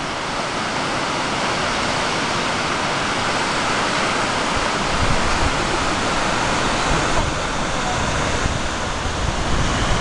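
Falls of Measach waterfall dropping into the gorge: a steady rush of falling water, with low wind buffeting on the microphone now and then.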